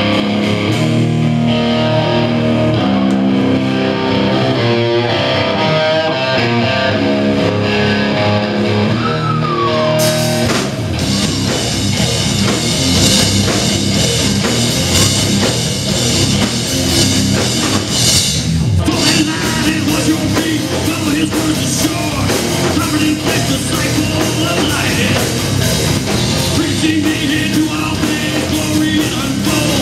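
Heavy metal band playing live through amplifiers: an electric guitar riff without drums for about the first ten seconds, then drums and cymbals come in with the full band, and vocals join near the end.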